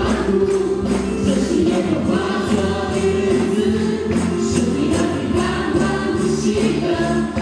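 A group singing a Mandarin praise song with musical accompaniment, while tambourines are struck on the beat.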